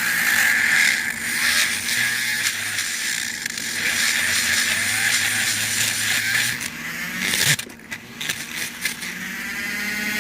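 Power drill running under load as it bores into a Kaba padlock's lock cylinder core to free the pin stacks, a steady motor hum under a harsh grinding whine; it eases off briefly about three quarters of the way through, then runs on.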